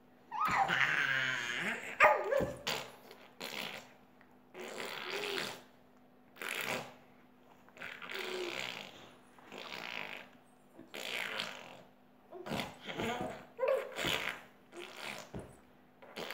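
An eight-month-old baby babbling, with about a dozen short squeals and grunts one after another, the longest just after the start. A faint steady hum runs underneath.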